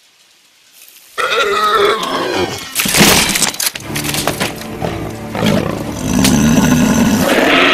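Massed Uruk-hai army roaring and growling, breaking in suddenly about a second in after near silence, with a few sharp clanks about three seconds in, and swelling into a sustained roar near the end.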